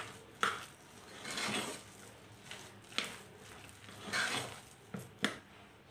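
Cooked rice and moong dal being mashed and stirred in a pressure cooker: soft squishing swells, with a few sharp clicks of a utensil knocking against the pot.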